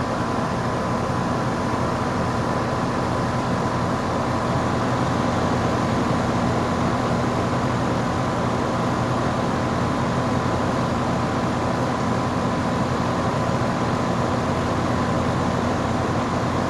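A 2016 Lennox 2-ton heat pump's outdoor unit running steadily in heat mode. The compressor hums and the fan blows air, with a thin steady whine over the noise.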